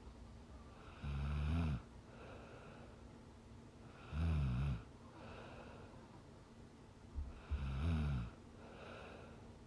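A woman snoring in her sleep: three low-pitched snores about three and a half seconds apart, with softer breathing between them.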